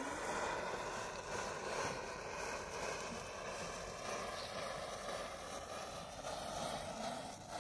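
Steady hissing and crackling of upright matchsticks burning, the flame catching head after head along a row of matches, over a steady background noise.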